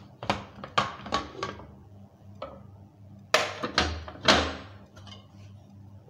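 Pressure cooker lid being unlocked and lifted off, its pressure already released: a quick run of sharp metal clicks and scrapes, then several louder metal clanks a little over three seconds in as the lid comes free.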